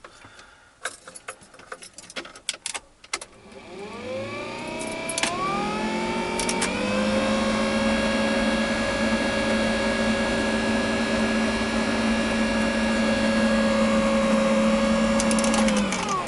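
A few clicks and knocks, then a GAZelle's heater blower motor, freshly reassembled and greased, spins up with a rising whine and runs steadily with a steady hum. Near the end it is switched off and its pitch begins to fall as it winds down.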